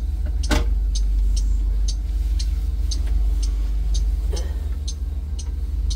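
School bus engine idling with a steady low rumble, and the warning-light flasher ticking evenly about twice a second. A sharp click comes about half a second in, and a duller knock about four and a half seconds in.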